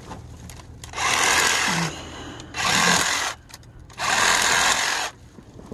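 Cordless reciprocating saw cutting through tree branches in three short bursts, each about a second long, with brief pauses between.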